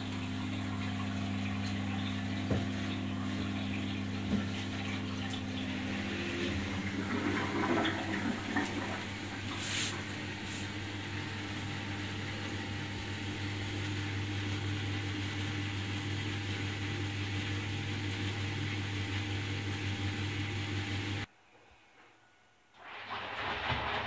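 1980 Candy Primato washing machine running: a steady low hum with water sloshing in the stainless-steel drum, busier gurgling about seven to nine seconds in. The sound drops away briefly near the end and resumes.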